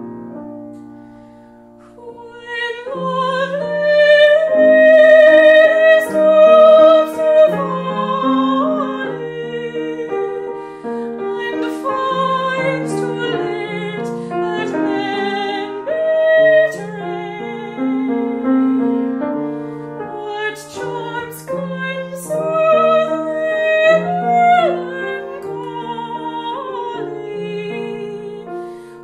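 A woman's voice singing a song with vibrato over piano accompaniment. The piano plays alone for about the first two seconds before the voice comes in.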